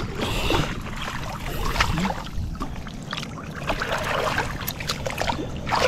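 Water sloshing and splashing around a person wading chest-deep, with irregular small splashes and drips as hands dip in and out of the water.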